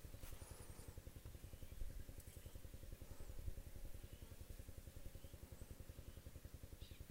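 A small motor running steadily, a low, fast, even pulsing, with faint high chirps from birds over it.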